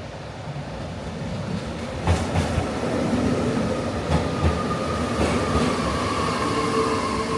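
A vehicle pulling away and picking up speed: a rumble that grows louder, with a high steady whine and short clunks coming in pairs every second or so.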